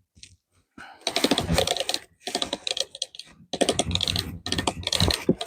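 A hand crank being turned to tighten something on a sawmill, making rapid clicking in spells of a few turns with short pauses between them.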